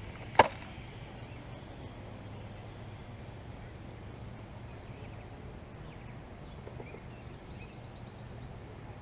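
A single sharp, loud click about half a second in as fishing tackle is handled in the lap, followed by faint small handling clicks over a steady low background hum.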